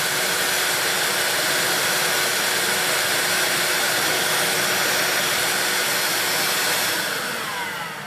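Vax Air Cordless Lift cordless vacuum running on boost: a steady rush of suction air through the hose into a turbo brush attachment, with a faint steady whine. Its suction is too weak to drive the turbo brush properly. About seven seconds in the machine is switched off and the motor whines down, falling in pitch.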